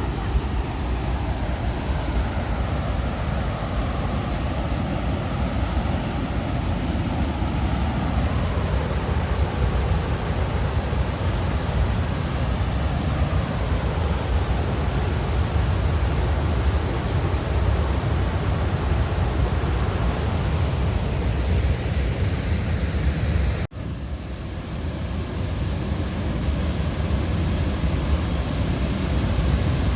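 Rain-swollen river and waterfall rushing hard in a steady, heavy roar of water. About three-quarters of the way through, the sound cuts out for an instant and returns with more hiss.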